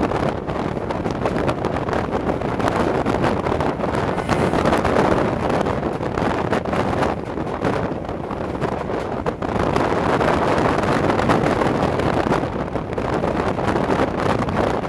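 Wind rushing and buffeting over a microphone held out of the window of a moving diesel-hauled passenger train, over the train's steady running rumble on the track. The noise swells and eases in gusts.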